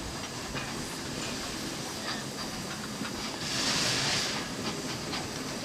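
Erie Type A steam shovel working: steady mechanical running with scattered light knocks, and a burst of steam hiss a little after halfway.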